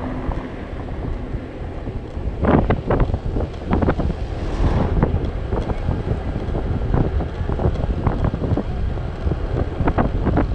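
Wind buffeting the microphone on a moving motor scooter at about 47 km/h, over a steady low road and engine rumble. From about two and a half seconds in, irregular sharp knocks and thumps break through.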